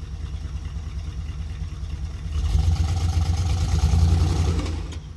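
Jeep J20 truck engine running with a steady low rumble, getting louder about two and a half seconds in, as if revved, and dropping back near the end.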